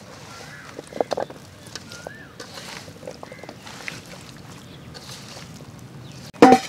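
Hand mixing marinated kingfish steaks with potatoes and carrots in a steel bowl: soft wet squishing with a few light clicks. A short rising-and-falling bird call repeats every second or so in the background, and a brief loud knock comes near the end.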